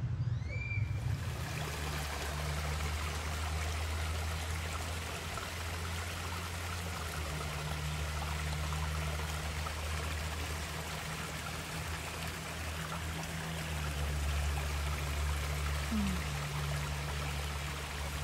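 Small waterfall and creek running, a steady rush of water.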